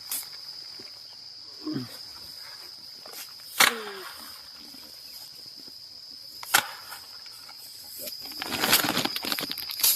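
Insects, such as crickets, keep up a steady high shrill, broken by a few sharp knocks or clacks and a burst of rustling clatter near the end.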